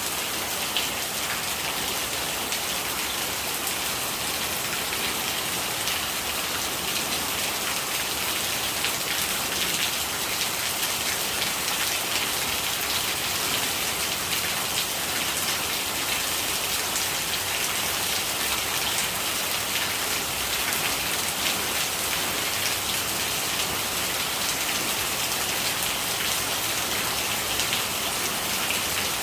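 Steady rain falling, a dense, even hiss of many small drop strikes that holds at one level throughout.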